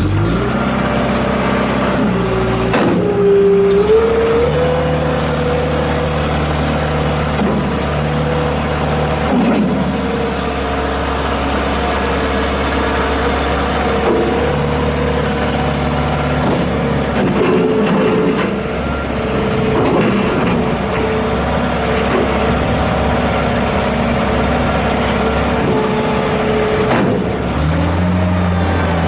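New Holland LS170 skid steer's 52 hp diesel engine running. It revs up about three to four seconds in and holds at high speed, dipping slightly now and then, then drops back to idle near the end.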